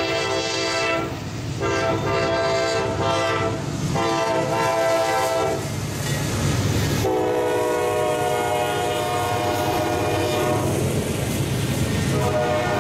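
Norfolk Southern diesel freight locomotives sounding a multi-chime air horn in repeated long blasts as they approach and pass. Each chord drops in pitch once the lead unit goes by, about seven seconds in, over the low rumble of the engines and the rolling train.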